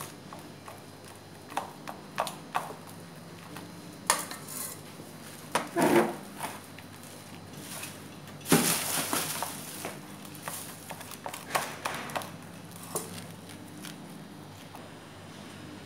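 Plastic rice paddle and fingers pressing and spreading cooked sticky rice over a plastic-wrapped metal tray: scattered soft taps, knocks and scrapes, with one louder, longer scrape or rustle about eight and a half seconds in.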